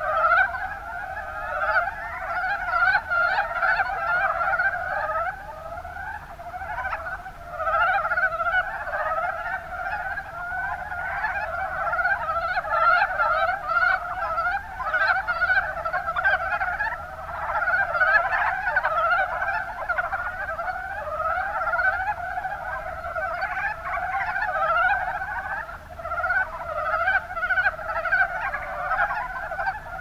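A chorus of mountain brown frogs (Rana ornativentris) calling: many short croaks overlapping without a break.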